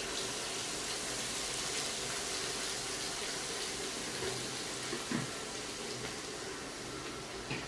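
Blended chilli, garlic and onion paste sizzling steadily in hot oil in a wok, just after being poured in to sauté.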